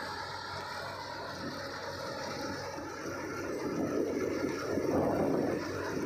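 Self-propelled combine harvester running as it cuts and threshes wheat, a steady engine and machinery noise that swells louder past the halfway point.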